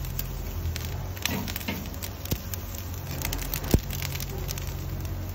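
Boneless beef short ribs searing over hot charcoal on a grill grate: sizzling with dense fine crackling over a low steady hum. There is a single sharp click about three and a half seconds in.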